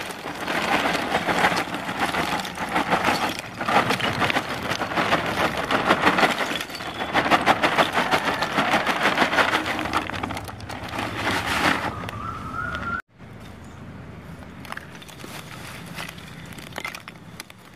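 Lump charcoal pouring out of a bag onto a heap on the ground, a dense clatter of pieces knocking together for about twelve seconds. After that it is quieter, with only a few scattered clicks.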